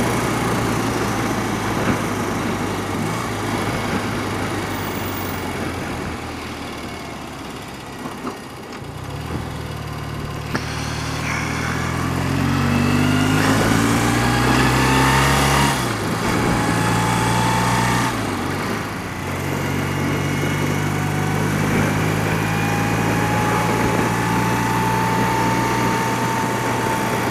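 A thirty-year-old BMW motorcycle's engine running on the move, with wind rush. The engine eases off, then pulls away with its pitch climbing, changing up twice in quick succession, and settles into a steady cruise.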